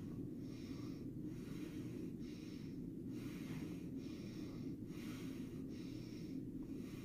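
A person breathing in quick, regular breaths, a breath sound about every second, showing a breathing pattern seen near the end of life. A steady low hum runs underneath.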